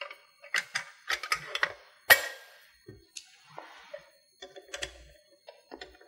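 Sheet-metal cover of a Danfoss MP differential pressure switch being slid back on and fitted by hand: a series of metallic clicks, taps and scrapes, the loudest a sharp click about two seconds in.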